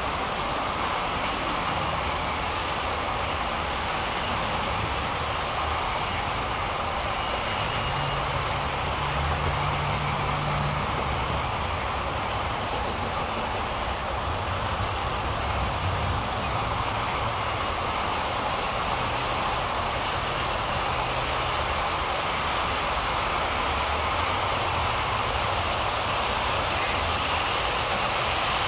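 G-scale model container train of double-stack well cars rolling past on garden railroad track: a steady whirring rumble of many wheels on the rails. A cluster of short, light clicks comes about halfway through.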